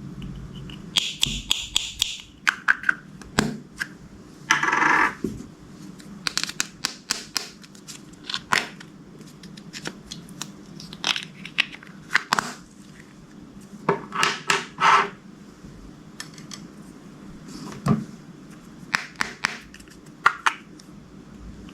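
Slime being squished and pressed by hand, making irregular sticky clicks and pops with a few longer squelches.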